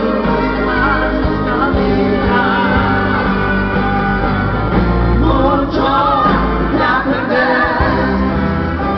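Live band playing a ballad with a man singing lead over electric guitar, bass and drums, loud and dull-topped as recorded from the crowd.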